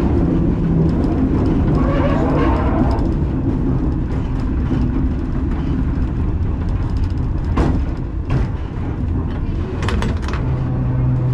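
Two-axle vintage tram running along its track: a steady rumble of wheels on rails with a low hum. There are a few sharp clicks about two-thirds of the way through, and a steadier low hum comes in near the end.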